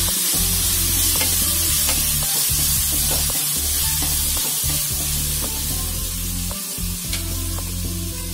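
Cubed potatoes sizzling in hot oil in an enamelled kadhai while a spoon stirs them, with scattered clicks of the spoon against the pan. Background music with a steady bass line runs underneath.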